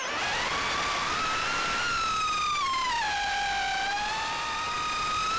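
FPV quadcopter's brushless motors whining, the pitch sliding with the throttle: a quick dip at the start, a sag to a low point in the middle, then climbing again near the end.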